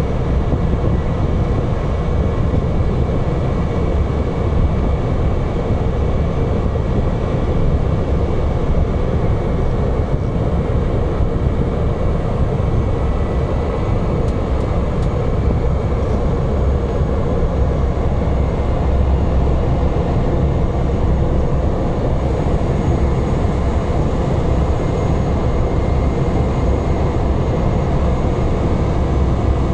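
Cabin noise of a Cessna 208 Caravan's single turboprop engine as the plane rolls along the runway: a loud, steady drone with a faint high whine running through it.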